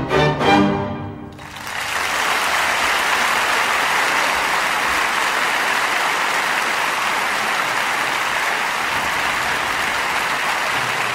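Music ends about a second and a half in, followed by steady applause from many hands.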